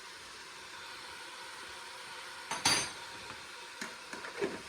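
A sharp clink of kitchenware, a spoon or spice container striking the cooking pot, about two and a half seconds in, with a few lighter clicks near the end, over the faint steady hiss of onions frying in the pot.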